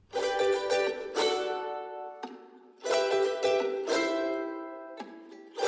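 A bright plucked string instrument strummed in chords, each strum ringing out and fading. A few strums come in quick succession, then after a pause more strums come about three and four seconds in, and again near the end.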